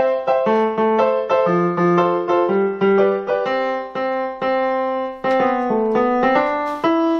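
Yamaha PSR-EW410 portable keyboard played with its piano voice: a simple tune of single notes struck a few times a second, each fading, with lower notes sounding beneath.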